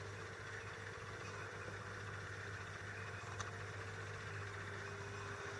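A faint, steady low hum of a running motor, with one small click a little past three seconds in.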